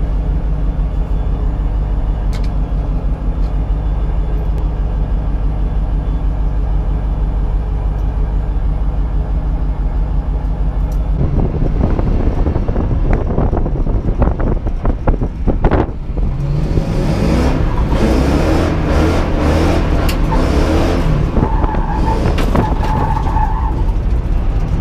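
Ford Mustang engine, heard from inside the cabin, running steadily at idle, then driven off about eleven seconds in. For the second half the engine revs up and down while the car slides on loose dirt on bald tyres, with crunching and rattling from the surface.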